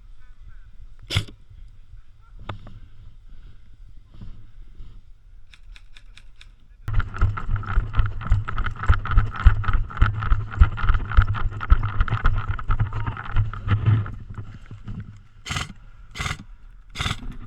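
Airsoft rifle firing on full auto for about seven seconds, a rapid stream of shots, then three single shots near the end.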